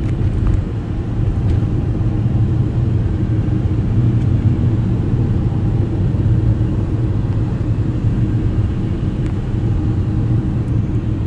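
Steady low rumble of a moving vehicle, heard from inside the cabin, with no distinct events.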